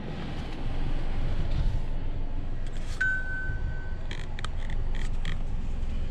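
Low steady rumble inside the Hyundai i20's cabin. About halfway through, one steady electronic beep lasts about a second, followed by a few quick clicks.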